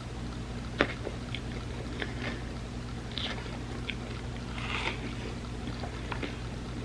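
Close-miked eating sounds: chewing and wet mouth clicks on a soft, sticky tortilla dessert lasagna layered with chocolate and peanut butter, with one sharp click about a second in. A steady low hum runs underneath.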